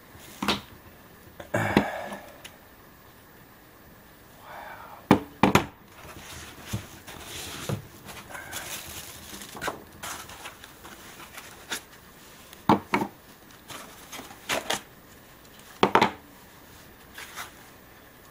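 Hard plastic drone parts and packaging being handled on a tabletop: a string of sharp clacks and knocks as pieces are picked up and set down, with crinkling of plastic bags in between.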